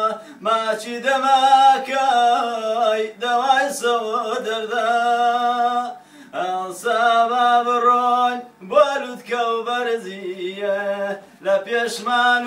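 A man singing a Kurdish song unaccompanied, holding long, ornamented notes that waver in pitch, phrase after phrase with short breaths between.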